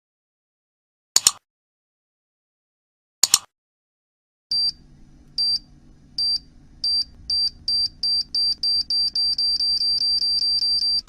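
Two short double clicks about two seconds apart, then a high electronic beep that repeats faster and faster over a low hum until it is almost continuous: a time-bomb countdown sound effect.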